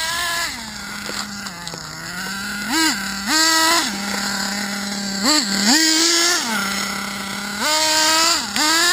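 Hobao Hyper 7 TQ2's .21 nitro engine running with a steady high buzz, broken by about five short throttle bursts where the pitch jumps up and drops back.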